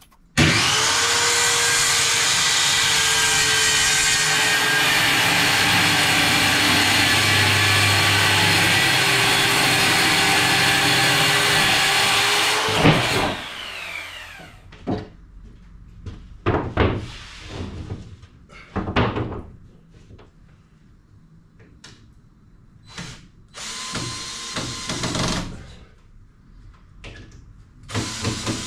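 Corded circular saw ripping a long cut through a plywood sheet, running steadily for about twelve seconds with its pitch dipping slightly under load, then winding down. After it come scattered knocks of boards being handled and two short bursts of a smaller power tool near the end.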